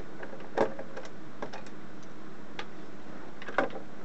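A few scattered clicks and taps of a small screwdriver working the screws out of the plastic case of a Casio JR-110 calculator, the two loudest about half a second in and near the end.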